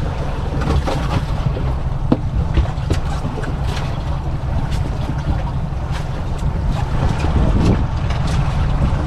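Steady low rumble of wind buffeting the microphone, with scattered clicks and knocks as salmon and gear are handled on the boat deck.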